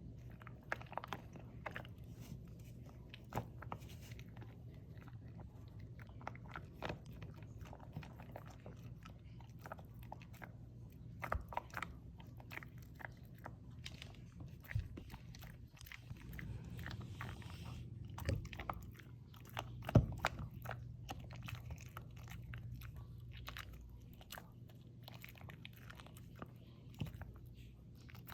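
A dog chewing a dental chew, with irregular crunches and bites throughout and one loud crack about two-thirds of the way through.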